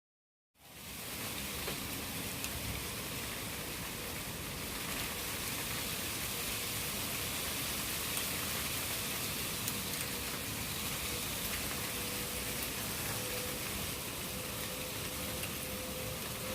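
Steady rain falling, an even wash of noise, with a faint steady hum growing in the second half.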